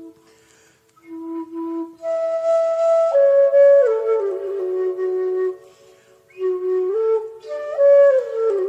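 Background music: a slow solo flute-like melody of held notes, with brief pauses in the first second and again around six seconds in.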